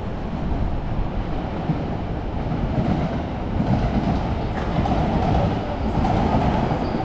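Train running along the railway tracks below, a steady rumble with wheels clattering over the rails, growing louder about halfway through as it comes closer.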